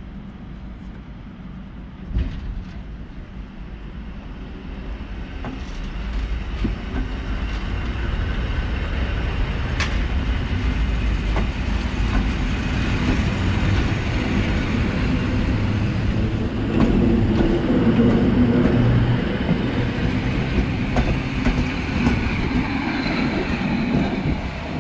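EN57 electric multiple unit pulling away from the platform and passing close by. It gets steadily louder as it gathers speed and the cars go past, with a sharp knock about two seconds in and another about ten seconds in.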